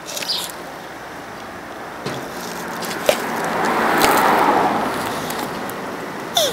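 Hermann's tortoise giving a few short, high squeaks with its mouth open, the vocalisation males make while mounting, a couple of seconds apart. A broad rushing noise swells up and fades away under them in the middle.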